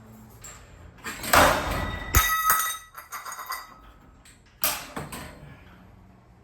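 Metal parts of a garage door torsion spring assembly being worked loose: a scrape, then a sharp metallic clank that rings on, some rattling, and a second clank.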